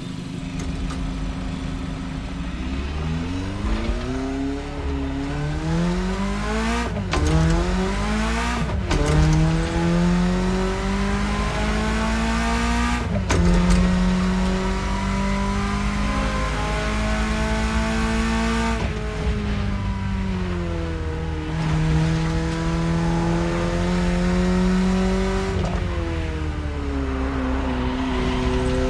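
BMW E30's engine pulling through the gears: the revs climb from a steady run about two seconds in, drop suddenly at gear changes roughly seven, nine and thirteen seconds in, hold steady for a while, fall away as it eases off, then climb gently with another shift near the end.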